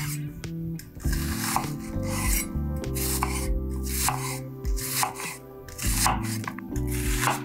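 Kitchen knife slicing through a raw peeled onion on a wooden cutting board. Each cut is a crisp crunch ending on the board, about one every half second to second.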